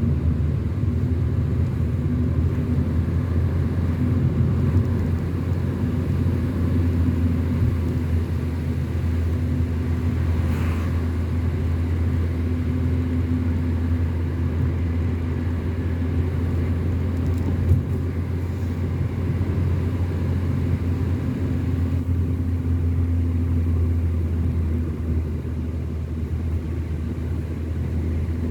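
A car driving along a road, with a steady low rumble of engine and tyres. There is a brief higher sound about ten seconds in and a single knock a little past halfway.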